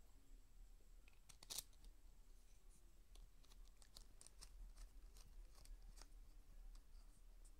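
Faint scattered plastic clicks and ticks as a thumbscrew is fitted through a GoPro Hero8 Black's folding mounting fingers and mounting buckle, with one sharper click about a second and a half in.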